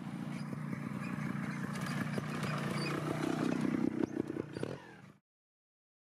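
Trial motorcycle engine running at low revs with clattering knocks, revving higher about three seconds in, then cutting off abruptly.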